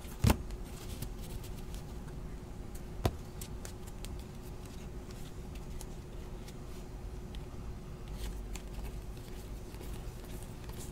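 Trading cards handled and flipped through by hand: light clicks and rustles of card stock, with two sharp thumps, one at the very start and one about three seconds in.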